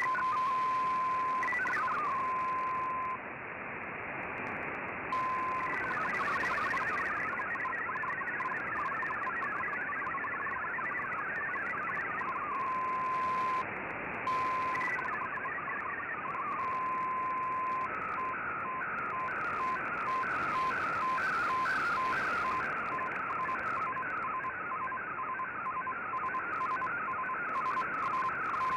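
MFSK digital-mode data signal received on shortwave through an Icom IC-R8600, over steady band hiss. Fast warbling data tones alternate with a steady single tone. From about two-thirds of the way in comes a regular, repeating pattern of stepping tones as a picture is sent.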